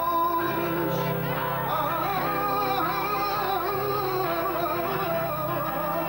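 Live music with a singer's voice: a wavering, drawn-out vocal line over steady held bass notes.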